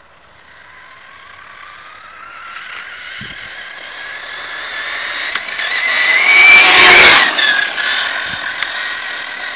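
Thunder Tiger RC buggy's motor with a high-pitched whine, building and rising in pitch as it approaches. It is loudest as it passes about seven seconds in, then drops in pitch as it moves away.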